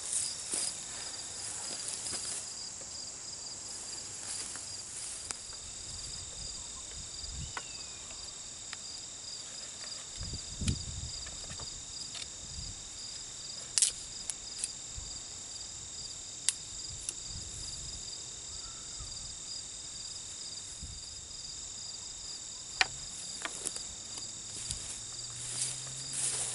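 Steady chorus of insects in a grassy field: a fast, even, high-pitched pulsing trill that runs without a break. A few sharp clicks and low knocks stand out over it now and then.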